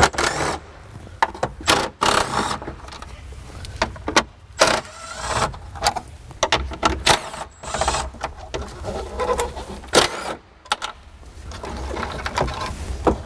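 Cordless power driver spinning in short runs as it backs screws out of plastic dash trim. Irregular plastic clicks and rattles come as the bezel is worked loose.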